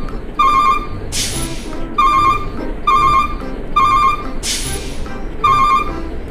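Background music built on a trilling electronic tone like a phone ringing, in short bursts about once a second, with a bright hissy swell twice.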